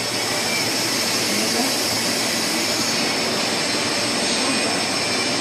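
Two-layer HDPE extrusion blow molding machine running: a steady, even mechanical hiss with faint high whining tones over it.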